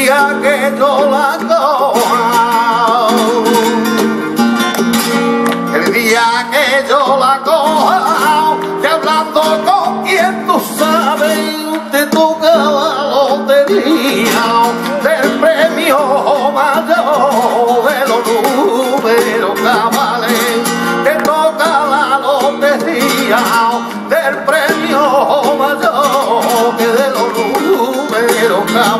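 Flamenco tangos performed live: a male cantaor sings long, ornamented melismatic lines over a strummed and plucked flamenco guitar, with rhythmic hand-clapping (palmas) keeping the beat.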